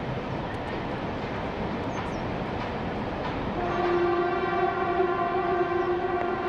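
A steady noisy rumble. A little over halfway through, a long, steady horn-like tone with a rich stack of overtones sets in and holds.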